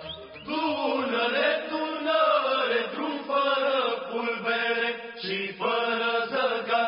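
Slow, chant-like singing: a voice holds long notes and slides between them, with short breaks between phrases.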